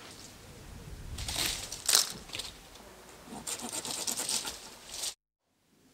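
Dry fallen branches and twigs rustling and crackling as they are handled and broken, with a sharp snap about two seconds in. The sound cuts off suddenly near the end.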